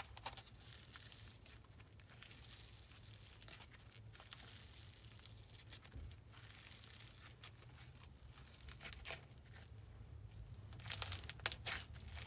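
Crunchy slime, clear slime mixed with micro foam beads, being squished and worked by hand: faint crackling and popping that gets louder and busier near the end.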